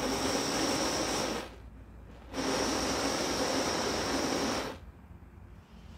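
Butane torch head on a can of butane burning with a steady hiss. It cuts out about a second and a half in, comes back under a second later, and stops for good near the five-second mark. This is a test firing after a part snapped inside the fitting, and the torch works.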